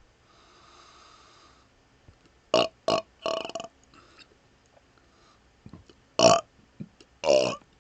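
A man burping: three short burps in quick succession about two and a half seconds in, then two louder burps near the end.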